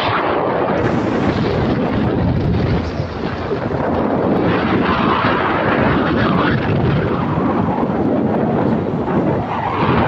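Loud, steady wind noise buffeting the microphone on a moving motorcycle, a dense rush with the bike's running noise blended in.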